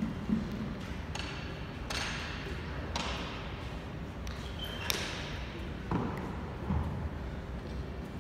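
Sharp shuttlecock strikes off badminton rackets, echoing through a large hall at irregular gaps of about a second, with a brief high shoe squeak on the court floor about halfway through.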